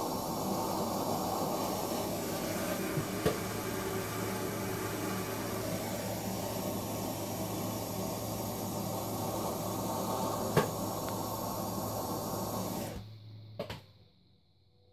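Handheld propane torch hissing steadily as it is played over a freshly thrown clay cup on a potter's wheel to dry it, with a low hum underneath and two sharp clicks. The hiss cuts off suddenly near the end, a click follows, and the hum stops about a second later.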